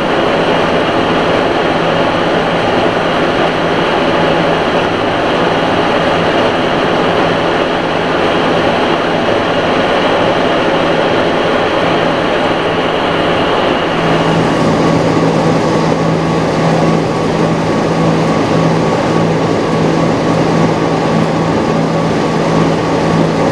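Metal lathe running, skimming the worn copper commutator of a tractor starter armature. A steady, loud machine noise with a low hum; its sound changes about halfway through.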